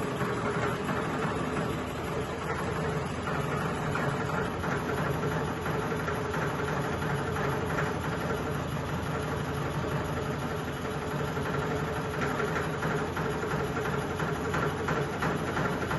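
Wobbly ceiling fan running at full speed: a steady hum with a fine rattle from its heavy vibration.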